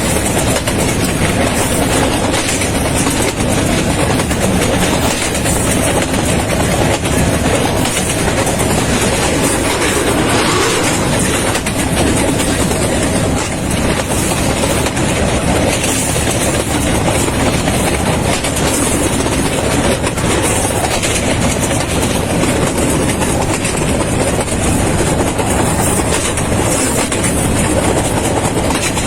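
Passenger train running along the track, heard from inside a carriage: steady, loud noise of the wheels on the rails.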